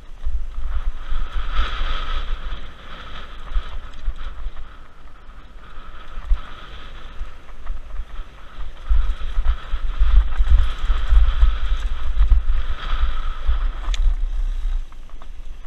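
2014 Pivot Mach 5.7 mountain bike riding down a dirt trail, heard from an on-board camera: heavy wind buffeting on the microphone over the hiss of tyres on dirt and the bike's rattle, loudest in the second half, with a sharp click near the end.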